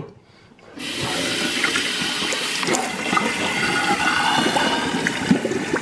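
Kitchen sink sprayer switched on about a second in, water running steadily into a stainless steel sink and over a removed sink P-trap, with a few light clicks.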